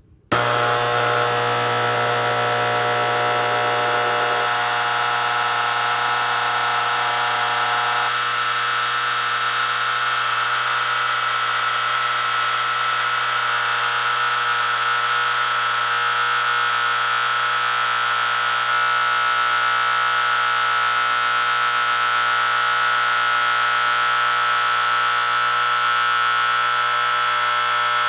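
Vintage Simplex 4037-1 electromagnetic fire alarm horn, run on 12 volts AC, sounding one continuous steady tone. It comes on abruptly just after the start, and its tone shifts slightly a few seconds in.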